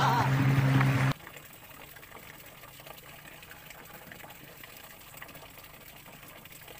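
An added meme sound clip with a steady low tone ends abruptly about a second in. Only faint, steady background hiss follows.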